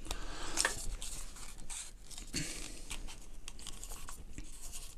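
Small white plastic radiator-valve adapters and the thermostat's metal thread being handled, screwed and set down: irregular light clicks and rustling.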